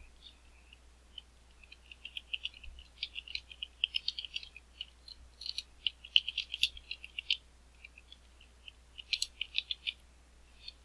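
Typing on a computer keyboard: quick runs of light key clicks, with a short pause about three quarters of the way through.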